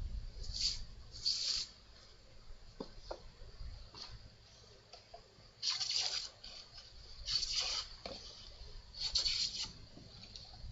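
A hand plane being pushed over a wooden bench leg in separate strokes, each a short hiss as the blade takes a shaving. There are two strokes near the start, then a pause, then three more about a second and a half apart.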